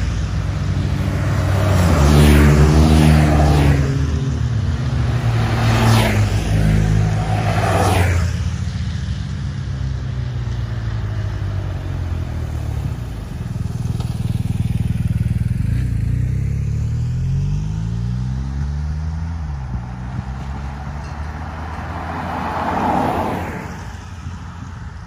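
Motorcycles riding past close by one after another, each a brief rise and fall of engine and tyre noise, over a steady low engine drone.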